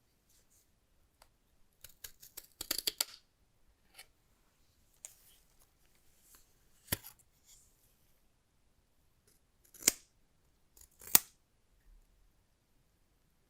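Smartphone box and packaging being handled and opened by hand: a quick run of crisp clicks and crinkles about two to three seconds in, then a few single sharp clicks, the loudest two near the end.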